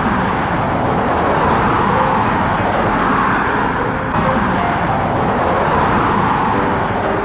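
Road traffic noise: cars driving past close by on a busy multi-lane street, the noise swelling and fading as each car goes by.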